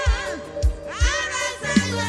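Live gospel praise music: singing voices over a band, with a low bass line and a kick drum thumping about twice a second.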